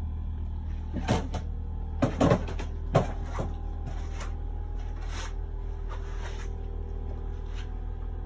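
A handful of short knocks and clicks over a steady low hum. The sharpest knock comes about three seconds in, just after a quick pair of knocks, and a few fainter clicks follow.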